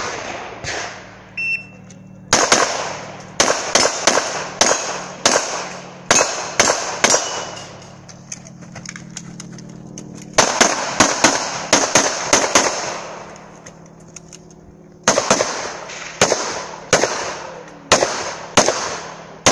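A shot-timer start beep, then a semi-automatic handgun firing fast strings of shots at an IPSC stage's targets. The firing comes in three bursts separated by pauses of a few seconds while the shooter moves between positions.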